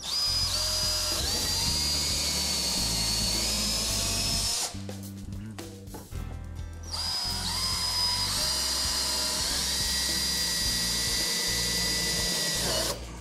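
Cordless DeWalt drill running in two long runs, each spinning up to a rising whine and then holding steady, with a short pause between, as it fastens a pallet stop to the trailer's front-wall post. Background music underneath.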